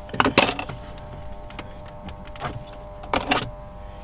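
Screwdriver clicking and scraping against the plastic centre-console trim while a Torx screw is backed out. A few scattered clicks, the loudest cluster just after the start, over a steady hum.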